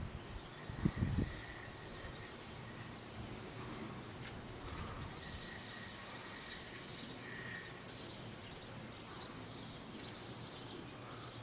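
Faint outdoor background noise with a few thin, distant chirps, and two low thuds about a second in.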